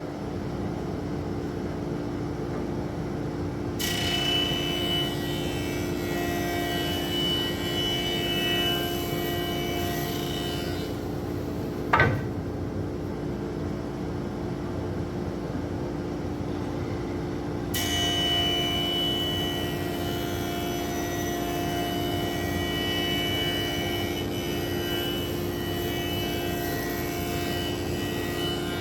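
Shop Fox woodworking machine running steadily for wood milling, with two stretches where a board is fed through and cut: a higher, whining cutting noise from about 4 to 11 seconds in and again from about 18 seconds in. A single sharp knock comes about 12 seconds in, between the two passes.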